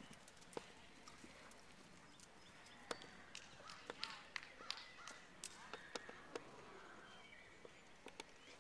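Near silence: faint outdoor background, with a scatter of sharp, irregular clicks through the middle.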